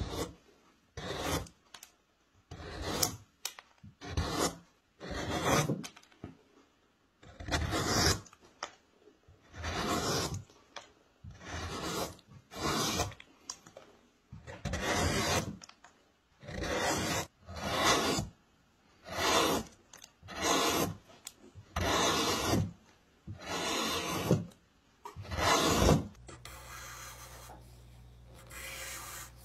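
Hand gouge cutting into wood, hollowing a bowl: a steady run of separate scraping strokes, about one a second, each a short shaving cut. Near the end the strokes stop and a quieter steady hiss with a low hum takes over.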